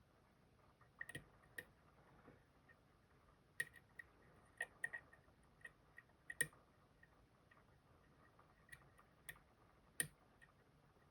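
Faint, irregular metallic clicks and ticks of a lock pick probing the pins inside an Assa Guideline lock cylinder, with a sharper click about six seconds in and another near ten seconds.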